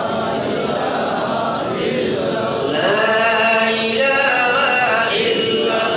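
A man's voice chanting in a melodic, drawn-out style, holding long notes: the sung delivery of a waz sermon.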